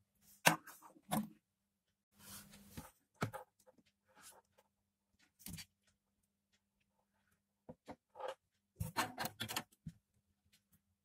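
Light scrapes, taps and rustles of hands handling thin wires and an earphone cable on a tabletop, in short irregular spells, over a faint steady hum.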